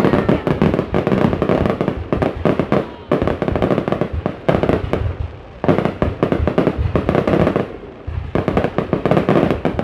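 Fireworks going off in a dense, rapid run of crackling pops and bangs, with brief lulls about three, five and eight seconds in.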